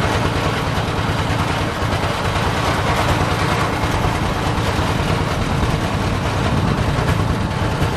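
An engine running steadily at an even speed, without changing pitch.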